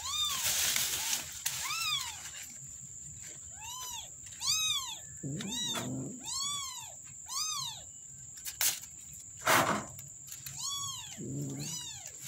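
A young kitten mewing over and over, about ten short high-pitched cries that each rise and then fall. Two sharp knocks come near the middle, the second one loud.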